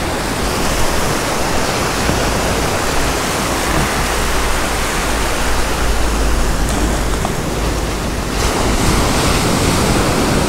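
Ocean surf washing onto the beach in a steady wash of noise, with wind buffeting the microphone in a low rumble.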